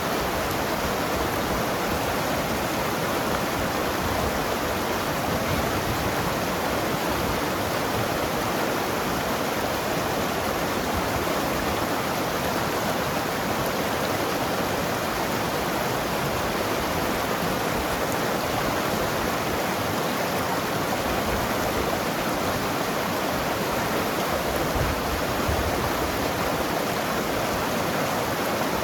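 Mountain river flowing and gurgling over rocks: a steady, dense rush of water.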